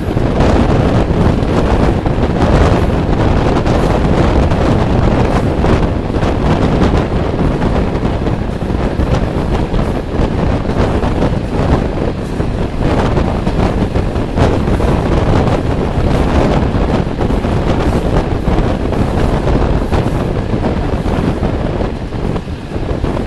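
Wind rushing over the microphone at the open window of a moving passenger train, over the steady rumble of the carriage running along the rails.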